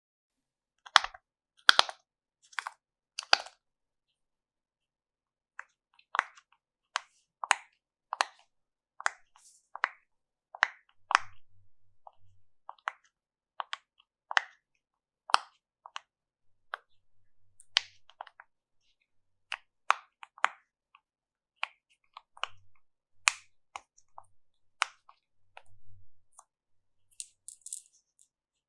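Slime being handled and pressed, making a string of short sticky clicks and pops about one a second, with silence in between.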